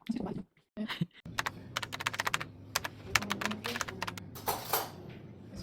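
A quick, irregular run of light clicks and taps, like keys being pressed, over a faint low hum.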